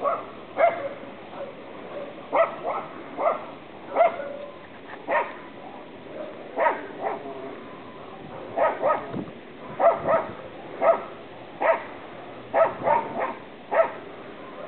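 A dog barking repeatedly: short barks, often two or three in quick succession, with brief pauses between the clusters.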